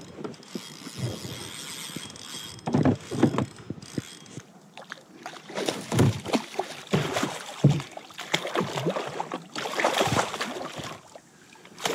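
A hooked kahawai thrashing and splashing at the surface beside a plastic fishing kayak as it is hauled in, with irregular splashes and knocks of gear and line handling against the hull.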